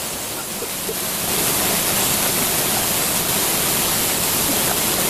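A two-tiered forest waterfall about 15 metres high, falling water pouring steadily onto rocks and into its plunge pool. The rush grows a little louder about a second in.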